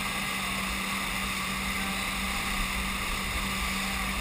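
Motorboat engine running steadily at speed, a constant hum under the rushing noise of the churning wake behind the stern.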